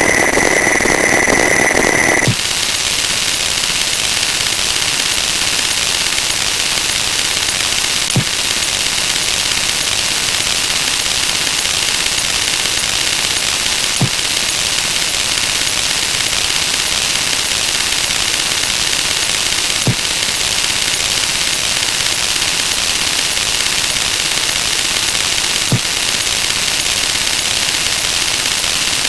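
A steady alarm tone over noise cuts off abruptly about two seconds in. It gives way to a dense, even hiss: a sound effect layered over itself a huge number of times until it blurs into noise. A faint click recurs about every six seconds.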